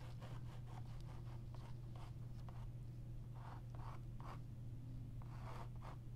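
Short scratchy strokes of a white sketching tool drawn across a stretched canvas, coming in quick runs, with a few louder strokes in the middle and near the end. A steady low hum runs underneath.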